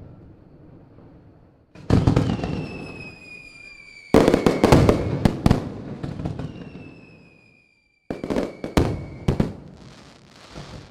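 Fireworks going off: three loud bursts, each starting suddenly with sharp crackling pops and fading slowly, with high whistling tones gliding slowly downward between them.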